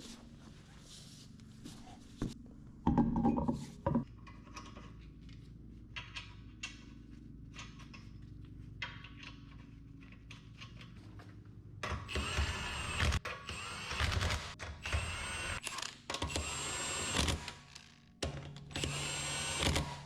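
A handheld power tool, of the drill or impact-driver kind, runs in a series of bursts of about a second each through the second half, its motor whine dipping and rising in pitch. Before that come scattered tool knocks and one heavier thunk.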